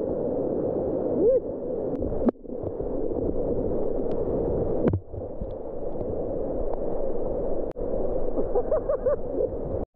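Churning floodwater in a whitewater rapid rushing and splashing around a kayak and its paddle, a steady muffled rush with the high end missing.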